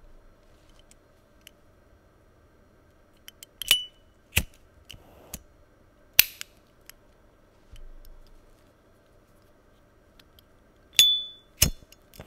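S.T. Dupont Le Grand Perfect Ping lighters clicking open and shut and being lit, a series of sharp separate metallic clicks. Near the end, the diamond-head metal lighter's lid opens with a short, high ringing ping, the lighter's signature sound; the lacquer version's clicks before it barely ring, since lacquer models lack the ping.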